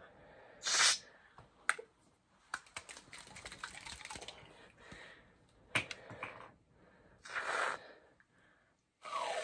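Aerosol can of non-dairy coconut Reddi-wip whipped topping dispensing in hissing squirts: a short one near the start and a longer one about seven seconds in. In between comes a run of quick clicks and rattles as the can is shaken.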